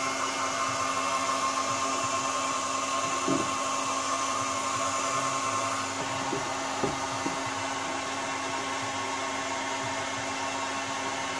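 Electric hot-air heat gun blowing steadily, warming a vinyl decal on a motorcycle fairing so it softens and stretches over the curve. A couple of light knocks sound partway through.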